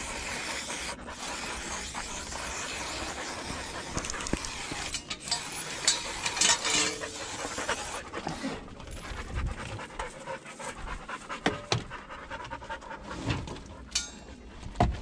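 Elhew English pointers panting hard from exertion after bird work. Near the end there is a splash of water poured from a plastic bottle.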